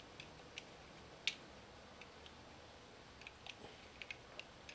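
Faint, scattered small clicks of metal parts and a hex tool being handled on an Audacity Pantera 50 RC helicopter's rotor head as a bolt is worked into place. One sharper click about a second in, and several more in the last second and a half.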